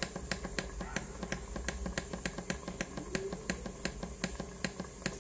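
Tefal CY505E40 multicooker's timer button being pressed over and over, a quick even run of short clicks about three or four a second, as the cooking time steps up minute by minute.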